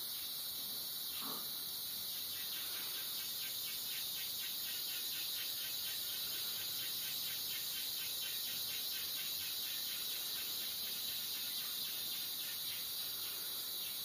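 Rainforest insects calling in a steady high-pitched drone, with a pulsing chirp at about four beats a second through most of it.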